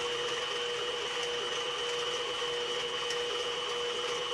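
CNC-converted mini mill running idle with its spindle on: a steady hum with a constant high whine above it, unchanging throughout.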